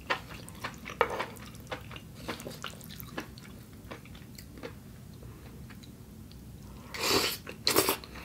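Close-up eating sounds: wet chewing and light clicks of chopsticks and a spoon on a plate while noodles are twirled, then two louder, hissing slurps as a mouthful of noodles is taken near the end.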